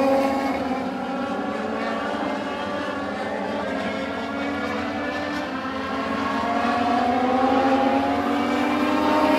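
A field of Legends race cars racing past at high revs, their Yamaha motorcycle engines whining. The pitch falls as the cars go by, and from about seven seconds in more cars come up with rising pitch and growing loudness.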